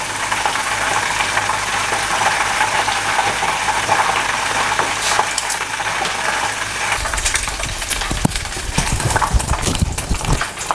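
Oysters frying in a pan, sizzling steadily. In the last few seconds there is a low rumble with scattered clicks and knocks as the pan and food are handled.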